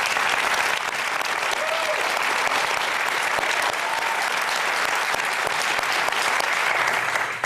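Studio audience applauding steadily, with a faint voice or two in the crowd, dying away near the end.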